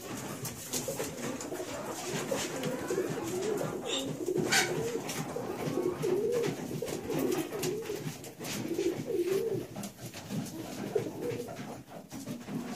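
Domestic pigeons cooing, a repeated wavering low coo, with scattered clicks and one sharp tap about four and a half seconds in.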